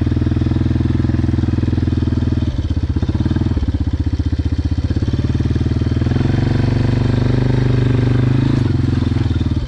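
ATV (quad) engine running at low speed, pulling a loaded trailer, its note rising a little about six seconds in. There are two brief knocks around the third and fourth seconds.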